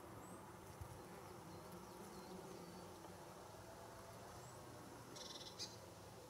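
Near silence: faint, steady buzzing of bumblebees foraging on meadow flowers, with a few faint high chirps.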